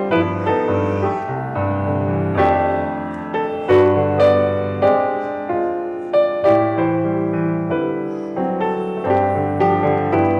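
Solo piano playing a slow piece: chords and melody notes struck and left to ring.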